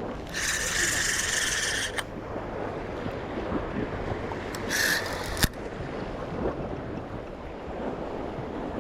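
Waves washing against rocks, with two spells of a high whirring from a fishing reel being wound, a long one at the start and a short one near the middle, and a sharp knock soon after the second.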